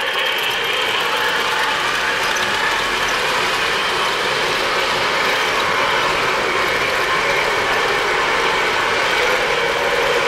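O-scale three-rail model trains running steadily on the layout: a continuous mechanical whir and rattle of their motor gearing and metal wheels on the track.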